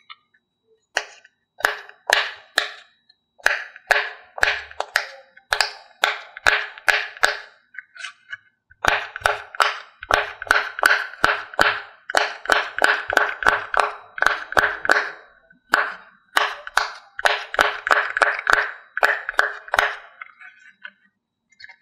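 Silicone push-pop fidget toy having its bubbles popped one after another by a fingertip: a long run of short, sharp pops, about three a second at the fastest, with brief pauses twice along the way.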